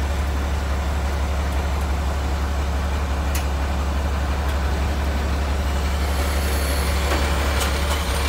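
Crane truck's diesel engine running steadily with a deep, even hum, powering the hydraulic crane as its control levers are worked. Two sharp clicks come about a third of the way in and near the end.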